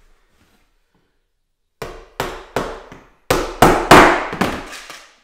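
Claw hammer driving a carpet tack, held in pliers, through a hardboard sheet into the floor: three light taps, then after a short pause a quicker run of about six harder blows.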